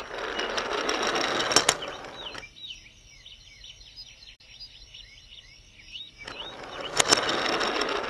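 Small toy train engines whirring as they run across a play mat: two runs of about two seconds each, one at the start and one near the end, each with a sharp click. Birds chirp faintly in between.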